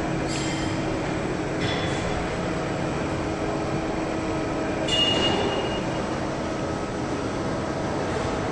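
Assembly-line conveyor and factory machinery running with a steady mechanical hum, broken by three short high squeaks, the loudest about five seconds in.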